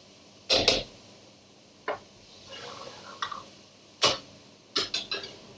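Metal ladle knocking against a pan, with a handful of sharp clinks (a double one about half a second in, then single ones, then a quick run of three near the end), as base gravy is ladled into a curry pan and worked in.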